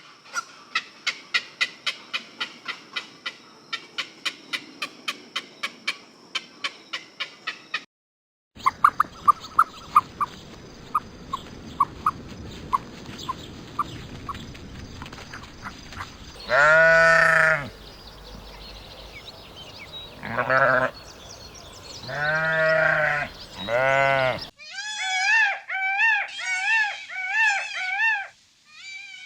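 A sheep bleating four times in loud drawn-out calls, the loudest sound here. Before the bleats comes a rapid regular run of small clicking chirps, then a string of short high pips. After them comes a quick series of high wavering peeps.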